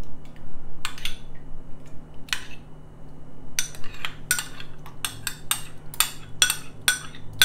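Metal spoon clinking and scraping against a small glass bowl as yogurt starter is spooned out of it. Two single clinks come first, then a quicker run of about three or four taps a second through the second half as the bowl is scraped out.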